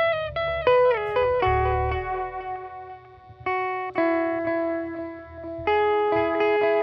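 Guitar playing a melody of single plucked notes that ring on into one another.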